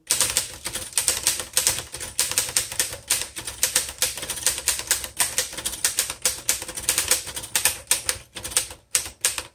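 1928 Royal 10 manual upright typewriter being typed on: a quick, unbroken run of typebar strikes, several sharp clacks a second.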